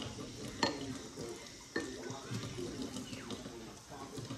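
Kitchen tap running into a stainless steel sink while a kitchen knife is handled and rinsed, with two sharp metallic clinks, one under a second in and another just under two seconds in.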